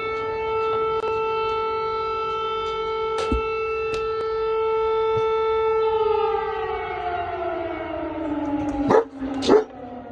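Civil defence air-raid siren sounding one long steady tone, then from about six seconds in its pitch slowly falls as it winds down. Near the end a dog barks twice over it.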